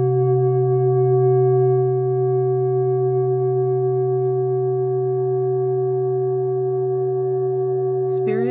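A steady ringing tone of several pitches held together, sustained without fading. A voice begins near the end.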